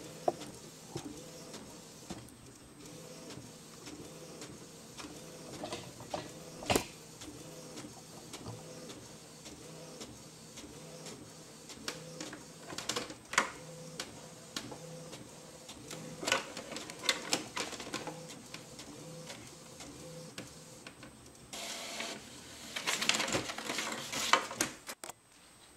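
Inkjet printer printing a page: a steady mechanical whir as the print head works across the paper, with scattered clicks and a louder, noisier stretch near the end. It is printing with an ink cartridge that has just been unclogged by soaking it in hot water.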